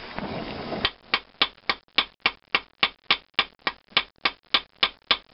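A ball-peen hammer strikes the red-hot end of a valve stem held in a vise, in fast, steady, ringing blows at about three or four a second. The hammering mushrooms the stem end over into the bevel of the valve head to lock the head onto the stem. A torch hisses for about the first second, before the blows start.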